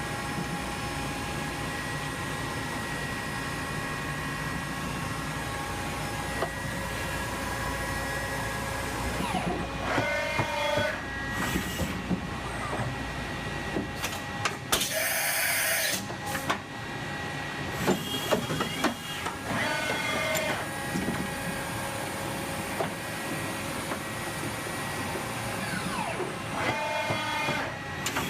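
1996 Enshu 550V CNC vertical machining center running a test program through axis travel and tool changes: a steady machine hum with several constant tones, short whining servo moves about ten seconds in, around eighteen to twenty seconds and near the end, and a short loud blast of air hissing about halfway through. The low hum drops away just before the air blast.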